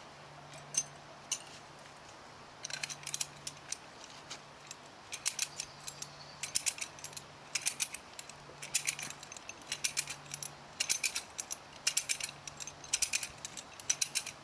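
Ratchet handle working a drop-pin fence wire strainer: quick runs of sharp metallic clicks, about one run a second, as the spool is wound to take up tension on the wire. A couple of single clicks come first, then the steady back-and-forth strokes start a few seconds in.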